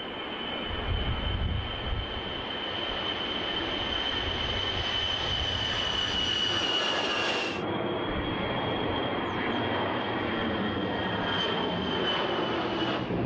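Jet aircraft engines running: a rushing noise with a steady high whine that sinks slightly in pitch. About halfway through it cuts abruptly to another stretch of similar engine noise with the whine a little higher.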